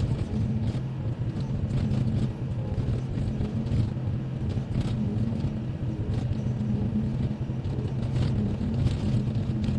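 Volvo EC55C compact excavator's diesel engine running steadily, with occasional short clicks or knocks over the hum.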